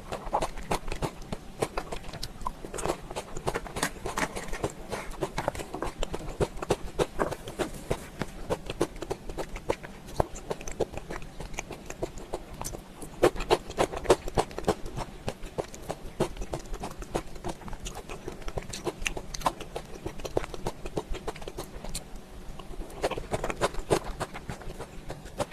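Close-miked mukbang eating sounds: chewing and biting food, with many sharp wet clicks several times a second.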